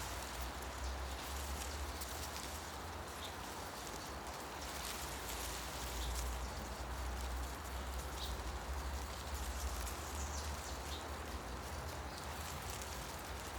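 Wind rustling tree leaves in a steady hiss, with a low rumble underneath and a few brief, faint bird chirps.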